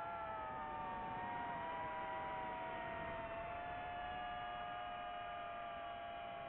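FPV quadcopter's electric motors and propellers whining in flight: several close tones that drop in pitch right at the start and then drift slowly up and down, over a steady rushing hiss.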